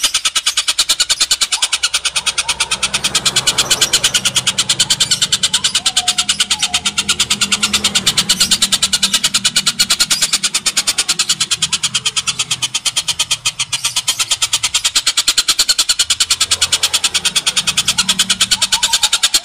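Oriental dollarbird (tengkek buto) giving a long, harsh cackling chatter: rapid notes repeated evenly without a break.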